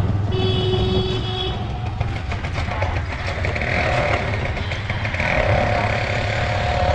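Auto-rickshaw running on the road, its engine a steady low hum under traffic noise, with a brief high-pitched tone about half a second in.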